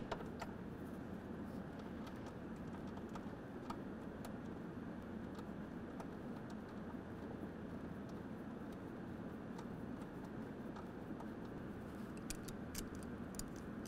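Scattered small clicks and taps of fingers working a wire's ring terminal and nut onto a ground post, with a few more near the end, over a steady low room hum.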